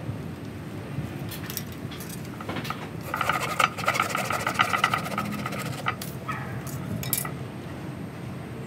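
Small hand pruning saw cutting into a ficus bonsai branch, with a run of fast rasping strokes lasting about three seconds from about three seconds in. A few separate clicks from the blade come before and after the strokes.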